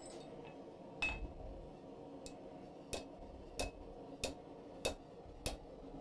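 Hand hammer striking a hot steel bar over the horn of an anvil, bending a tapered staple: a steady run of about seven blows, roughly one every two-thirds of a second, starting about a second in, some with a short metallic ring.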